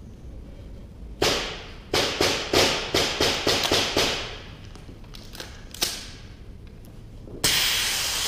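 Sharp cracks echoing through a metal-clad warehouse during an airsoft skirmish: one, then a quick run of about eight in two seconds, then one more. Near the end comes a sudden loud hiss lasting about a second as smoke fills the air, like a smoke grenade going off.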